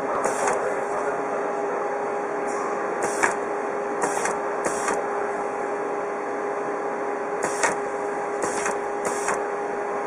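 Label-marking machine running under a CO2 laser marker: a steady hum with short noisy bursts, each about a quarter second long, coming at uneven intervals as the label web steps forward. Faint background chatter underneath.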